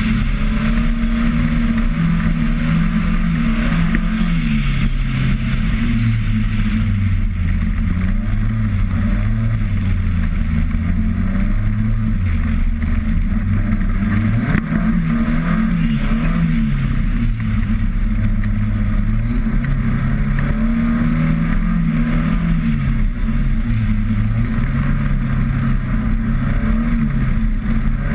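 Car engine heard from onboard, its revs rising and falling in steps as the car is driven through the turns of an ice track, over a constant rushing noise.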